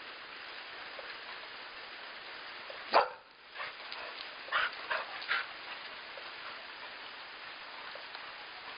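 Golden retriever barking: one loud bark about three seconds in, then a few shorter, quieter barks over the next two seconds.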